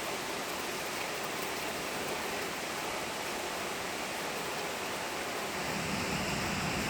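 Steady rain from Hurricane Irma, an even hiss. About five and a half seconds in, wind starts to rumble on the microphone.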